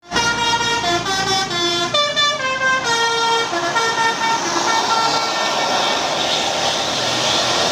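Indonesian tour bus "telolet" horn: a set of musical air horns playing a quick tune of changing notes for about four and a half seconds, followed by a steady rushing noise.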